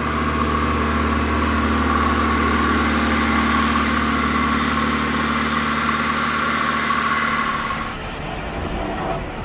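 A vehicle engine running steadily at a constant low pitch, with a hiss over it; the sound thins out and changes about eight seconds in.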